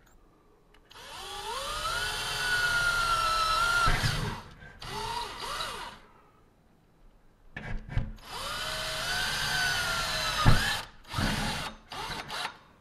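Cordless drill with a 1/8-inch bit drilling a pilot hole through an insulated metal door. The motor whine rises as it spins up, in two long runs of about three seconds each, with shorter bursts between them and near the end.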